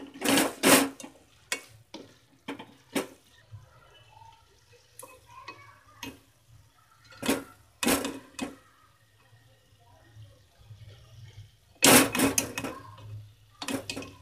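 Spatula knocking and scraping against a kadai while stirring a vegetable mixture and tipping in boiled macaroni: a series of sharp clanks, loudest about half a second in, around seven to eight seconds, and near twelve seconds.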